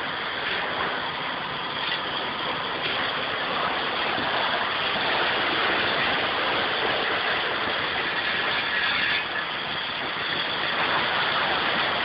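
Concrete truck's diesel engine running steadily during a concrete pour.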